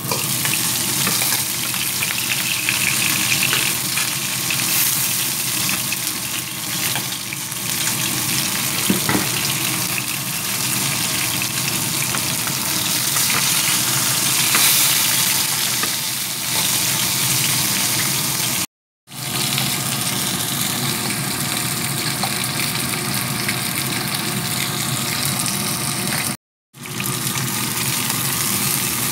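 Whole tilapia frying in hot oil in a pan, a steady loud sizzle, broken twice by brief silent gaps.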